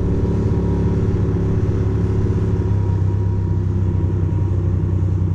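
2006 Ducati Monster 620's air-cooled L-twin engine running steadily at low road speed, heard from the rider's seat as an even, low rumble.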